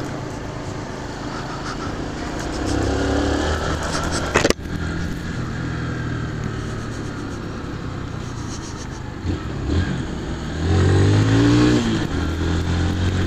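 Honda CG 150 Fan's single-cylinder four-stroke engine under way, revving up twice as the motorcycle accelerates. The second rise, near the end, is the loudest, with the pitch climbing and then falling away. A single sharp click comes about four and a half seconds in.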